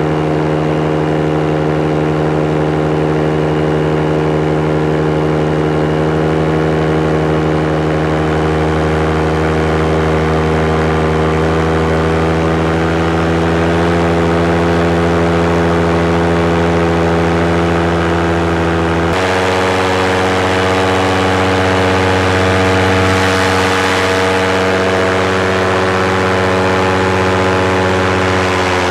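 Small propeller aircraft's engine running steadily in cruising flight, a constant hum that shifts abruptly in pitch about 19 seconds in.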